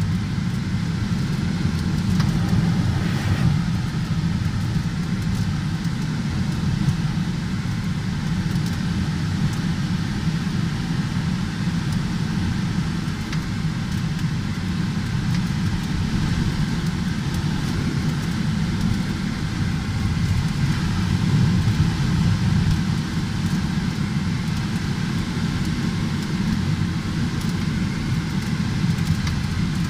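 Steady rumble of air rushing around a glider's cockpit canopy while it is towed aloft behind a tow plane.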